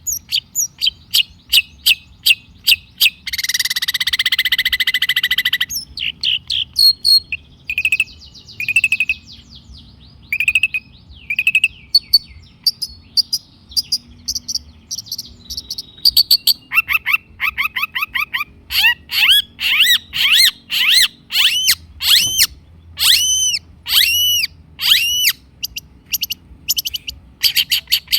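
Long-tailed shrike (cendet) singing a varied, fast song: sharp chips, a harsh buzzy chatter lasting a couple of seconds near the start, scattered whistled notes, then a long run of repeated arched, falling notes in the second half.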